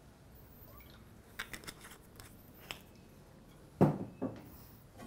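Cookware being handled at a gas stove: a few light clicks, then a sharp knock just before four seconds in and a softer one just after.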